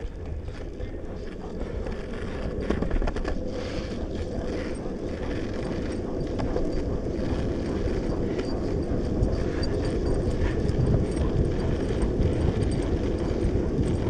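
Longboard wheels rolling fast over asphalt: a steady gritty rumble that grows slightly louder as the board picks up speed.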